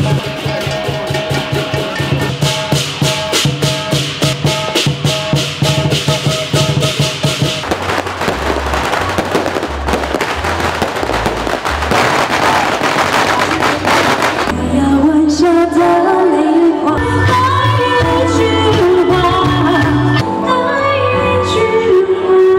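Music with a fast, even rattling beat. About seven seconds in, a long string of firecrackers crackles densely for around seven seconds. After that, music with a gliding melody carries on.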